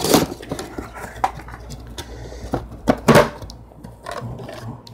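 Cardboard box being opened by hand: the tape seal is slit with a folding knife and the lid is flipped up. A series of knocks, scrapes and rustles, loudest about three seconds in.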